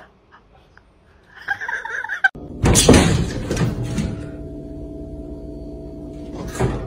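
A cat thudding against a window pane from outside: a loud, sudden bang with a rattle about two and a half seconds in. Steady held music tones follow it.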